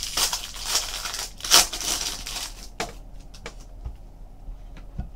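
Foil wrapper of a trading card pack being torn open and crinkled, in a run of rustly bursts over the first three seconds. After that come a few faint clicks as the cards from the pack are handled.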